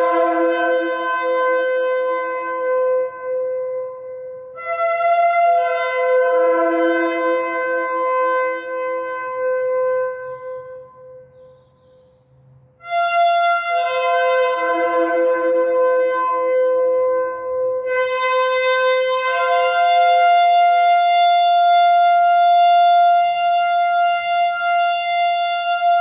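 Shofar (ram's horn) blown in long sustained blasts, each moving between a higher and a lower note. There is a short break about eleven seconds in, and the last blast climbs back to the high note and is held for several seconds.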